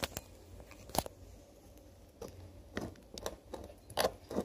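A spatula stirring glue and laundry detergent in a bowl as the slime is activated: a few scattered sticky squelches and clicks, the sharpest about a second in, with more near the end.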